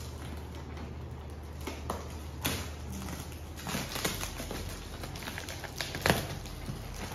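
Scissors cutting and hands tearing open a taped cardboard shipping box: scattered snips, cardboard crackles and tape rustling, the loudest crack about six seconds in.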